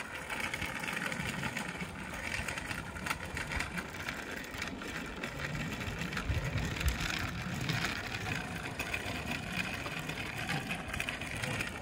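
Steady rushing noise of riding along on a bicycle, with wind buffeting the microphone.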